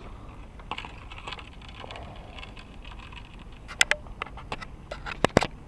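Scattered clicks and taps with a few sharp knocks near the end: handling noises as a hooked crucian carp is landed and dealt with.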